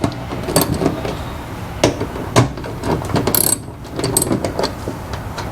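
Socket ratchet clicking as it backs out 7 mm fender-liner bolts, in irregular runs of sharp clicks.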